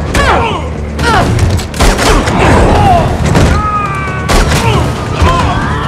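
Fight sound effects: punches and body blows land with grunts and cries of effort, over the steady low drone of a cargo plane's engines.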